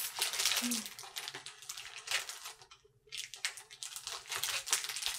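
Thin plastic bags crinkling and rustling in irregular crackles as they are handled and pulled at to get them open, with a short pause near the middle.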